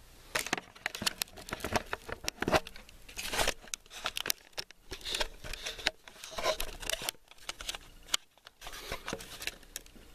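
Handling noise from a handheld camera being picked up and turned around: irregular rubbing, scraping and clicking of fingers against the camera and its microphone.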